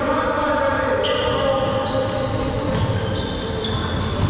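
Indoor dodgeball game: balls bouncing on a hard court floor, shoes squeaking sharply on the floor, and players' voices calling out, all echoing in a large hall.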